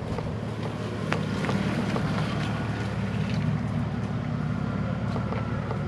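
Four-wheel-drive's engine running steadily at low revs while crawling down a steep, rough track, with a few sharp clicks and knocks, the loudest about a second in.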